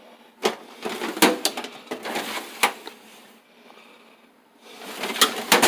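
Toolbox drawers sliding open and shut, with a series of sharp knocks and clatter from the tool kits inside. Near the end, a drawer slides out with a rush and two more knocks.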